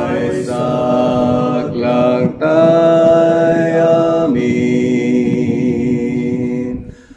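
One man's voice multitracked into several a cappella harmony parts, singing long held chords of an Ilocano Christian song. The chords change every second or two, with a brief break about two and a half seconds in, and the voices die away just before the end.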